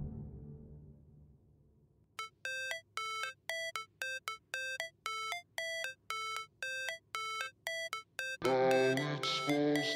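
Background music: one track fades out, then a bell-like synth riff of short repeated notes plays, and fuller music comes in near the end.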